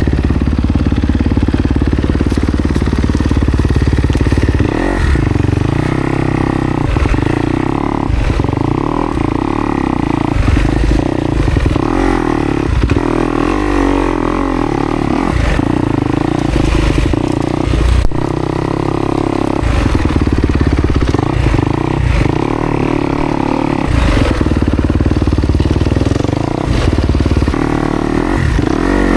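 Kawasaki KX250X four-stroke dirt bike engine revving up and down in quick, uneven bursts of throttle, ridden over rough trail, with clatter and knocks from the bike over rocks and roots.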